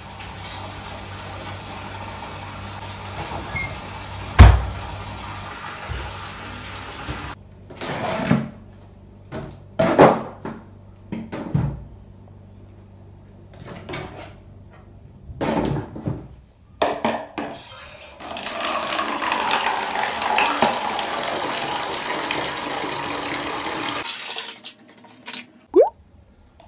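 Water running from a tap in two long stretches, with scattered knocks and clatter of plastic containers being moved between them.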